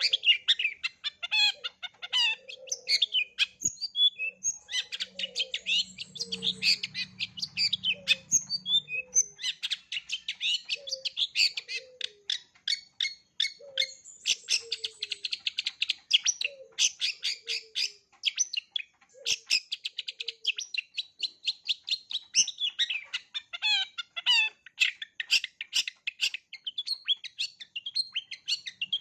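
Long-tailed shrike (cendet) singing a fast, varied chattering song full of mimicked phrases. Short low notes that slide downward repeat about once a second under it through the first two-thirds.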